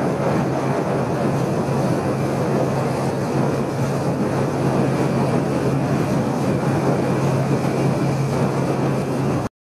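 JR West Miyajima ferry Itsukushima under way: a steady engine drone with a constant low hum under a broad rushing noise.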